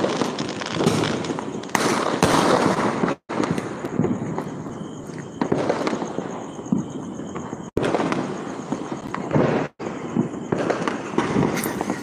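Many firecrackers and fireworks going off at once: a dense run of overlapping bangs and crackles that never lets up, cutting out for an instant three times.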